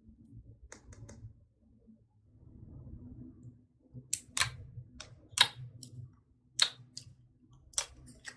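Slime being squished and worked by hand, with a soft low squelching and sharp clicking pops of trapped air. There are a few faint clicks about a second in, then five or six sharp pops from about four seconds on.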